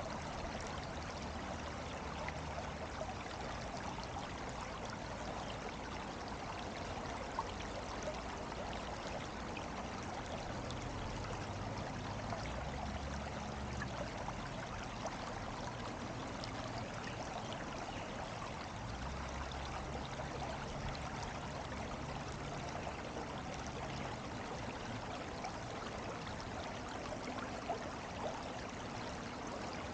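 Steady rush of flowing water, like a stream running over stones, with small splashy ticks scattered through it.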